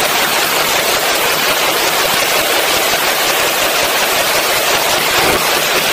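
Rapid string of shots from an AR-15 pistol in an indoor range, running together into one continuous loud noise with no clear gaps between reports.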